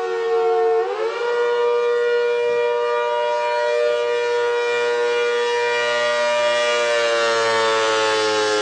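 A siren sounding a steady multi-tone wail. Its pitch sags, swings back up quickly about a second in, holds, then slowly falls near the end.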